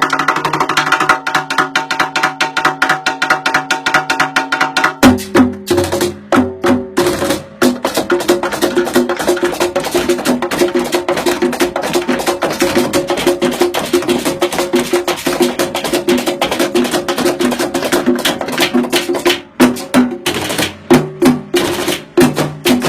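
Music with fast, dense percussion, sharp wood-block-like strokes over held pitched parts; about five seconds in the pitched parts change and a low bass line comes in, and near the end the beat briefly drops out and returns.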